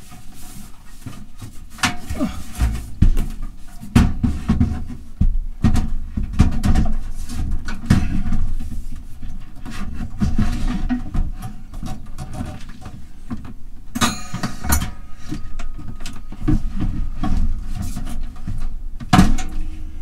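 Microwave oven being lifted and worked back into its wooden overhead cupboard housing: irregular knocks, bumps and scrapes of the metal case against the cabinet, with the sharpest clatters about two-thirds through and near the end.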